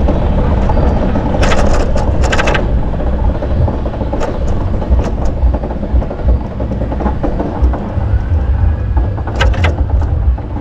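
Bicycle ride heard from the rider's camera: a steady low rumble of wind and road, with short bursts of rattling clicks about a second and a half in and again near the end.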